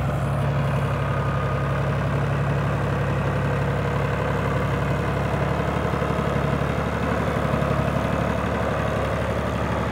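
2003 Al-Ghazi tractor's diesel engine running steadily while it pulls a three-bottom plough through sandy soil, with a low, even pulsing.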